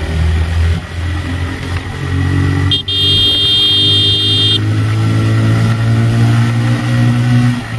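TVS Raider 125's single-cylinder engine running hard under acceleration, its pitch slowly rising in the second half. A high-pitched horn sounds for nearly two seconds about three seconds in.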